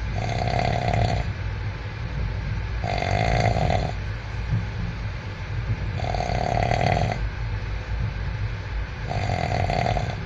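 A person snoring in a regular rhythm: four snores about three seconds apart, each lasting about a second, over a steady low rumble.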